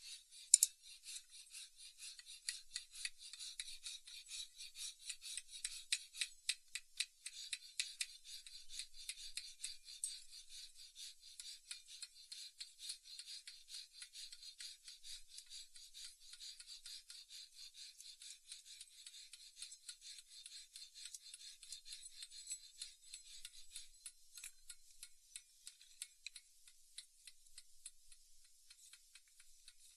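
Steel hand file rasping on a wooden axe handle in a long run of quick back-and-forth strokes, shaping the handle to fit the axe head.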